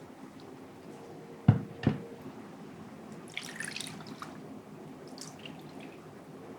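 Two sharp knocks of dishware in quick succession about a second and a half in, then a run of light drips and small splashes of liquid.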